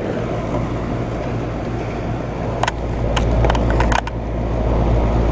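2012 Bryant Legacy central air conditioner's outdoor condensing unit running just after its first startup of the season: a steady low compressor hum under the even rush of the condenser fan, with a few light clicks partway through.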